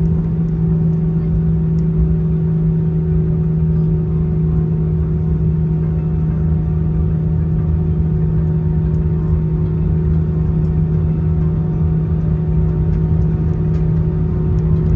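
Cabin noise of an Airbus A320-214 taxiing, heard inside the cabin: its CFM56 engines at low taxi power give a steady, even drone with a constant low hum over a rumble.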